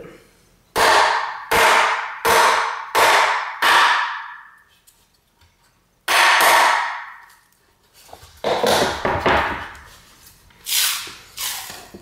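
Scored sheet of drywall being tapped with a tool handle to snap it along the score line: five sharp knocks about 0.7 s apart, another about six seconds in, then rougher knocks and crunching as the gypsum core breaks and the piece folds back.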